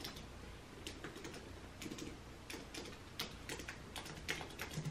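Irregular keystrokes on a computer keyboard as a word is typed slowly, a few keys at a time.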